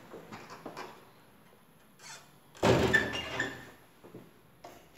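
An interior door shutting with a thud about two and a half seconds in, ringing briefly as it fades, with a few light knocks before it.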